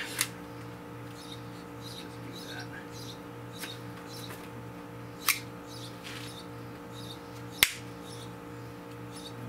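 Shims being snapped off and trimmed at a newly installed basement window frame: sharp snaps just after the start, about five seconds in and, loudest, nearly eight seconds in, with small clicks and scraping between. A steady low hum and faint high chirps sit underneath.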